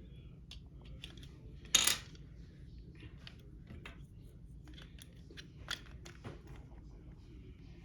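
Small plastic kit parts being handled and fitted: scattered light clicks and taps, with one louder short clatter about two seconds in.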